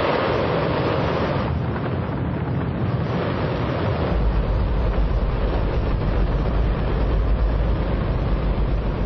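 A liquid-hydrogen and liquid-oxygen rocket engine firing on a test stand: an extremely loud, steady roar, with a deep low rumble that grows stronger about four seconds in.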